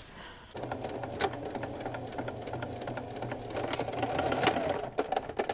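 Singer electric sewing machine stitching steadily through a fabric strap and waistband, starting about half a second in and stopping shortly before the end.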